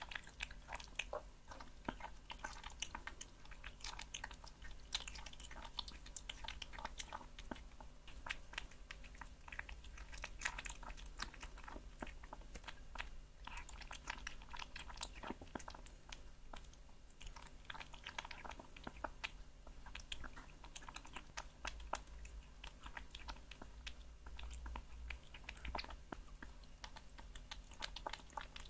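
Kitten chewing and biting chunks of raw meat: a steady run of quick, irregular clicks.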